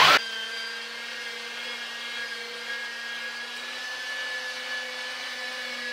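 Electric meat grinder motor running steadily while red onions are fed through it and minced, a constant hum with a higher whine above it.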